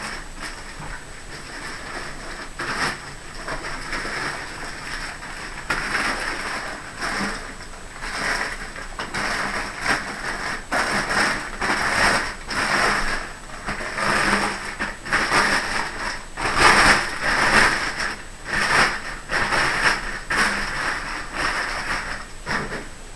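Cardboard shipping box and packing material being pulled apart and handled while a long gun is unpacked: irregular rustling and scraping in uneven bursts, with occasional knocks.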